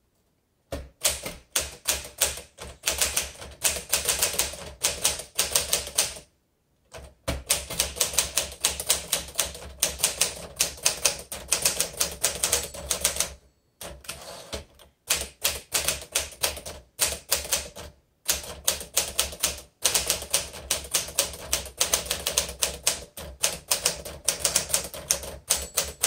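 Typing on a 1957 Smith Corona Sterling manual typewriter: quick, uneven runs of keystrokes clacking, broken by a few short pauses.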